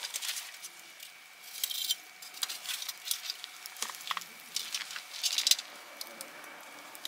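Wood campfire crackling and popping in a metal fire stand, with a few louder spits of hiss. Metal tongs clink against the logs and stand near the start.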